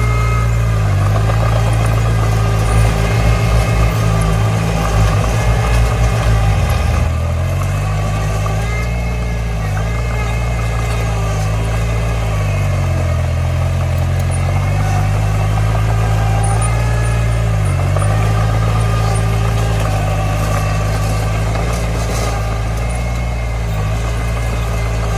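Komatsu D20 bulldozer's diesel engine running under changing load, its pitch dipping briefly several times as it lugs. Between about 2 and 7 seconds in there is a rattling clatter.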